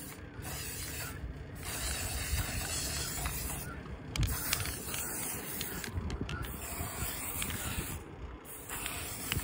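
Aerosol can of copper spray paint spraying in bursts, the hiss breaking off briefly four or five times as the can is released and pressed again.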